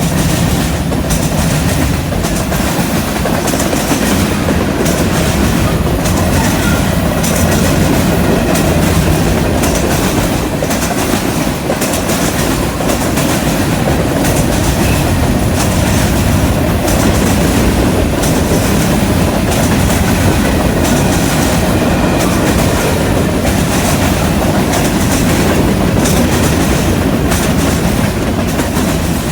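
CN freight train's cars rolling past close by, a steady rumble with the wheels clicking rhythmically over the rail joints and the junction switch.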